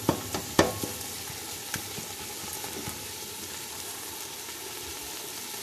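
A spoon knocks and scrapes against a large pot a few times in the first second. Then softened onion, tomato, garlic and green chillies sizzle steadily in the pot, a sign that the water they were stewed in has cooked off.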